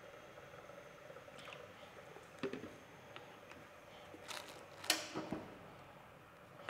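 Faint handling sounds of a plastic bottle at a cooking pot: a few soft clicks and rustles, the loudest about five seconds in, over a faint steady hum.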